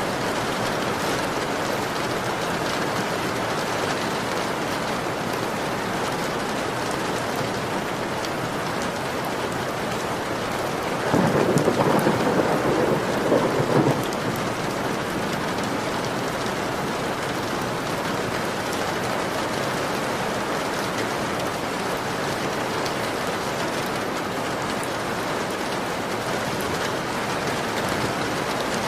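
Heavy rain pattering steadily on a window. Near the middle, a louder, deeper rush rises over it for about three seconds.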